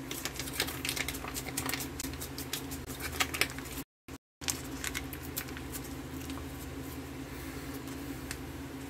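Plastic ration pouch of cheese spread being kneaded by hand: soft crinkling and clicking, busiest in the first half, over a steady low hum. The sound cuts out for a moment about four seconds in.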